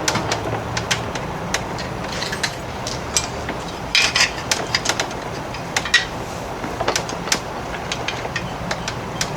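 Irregular light clicks and knocks of hand tools and metal hardware being handled while working on an outboard motor's lower unit, busiest about four seconds in and again around six to seven seconds, over a steady low hum.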